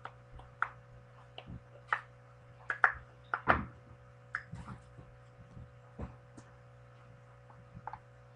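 Irregular light knocks, clicks and rustles of things being handled in a small box, loudest about three seconds in, over a steady low electrical hum.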